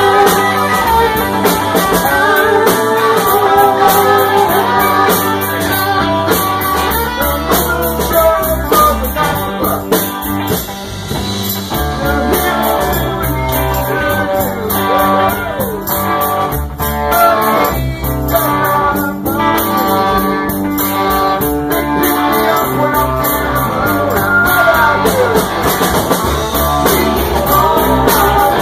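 Live rock band playing: electric guitars, drums and singing voices.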